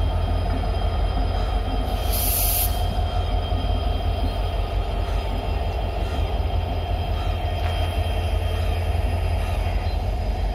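Passenger train running along the platform: a heavy steady rumble of wheels on rail, with a thin steady squeal. A short sharp hiss about two seconds in.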